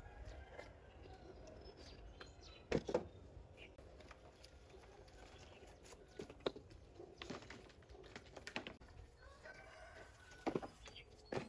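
Several short sharp knocks, scattered a second or more apart, over faint bird calls.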